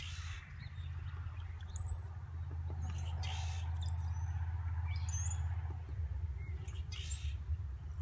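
A handful of short, high bird chirps scattered over a steady low rumble.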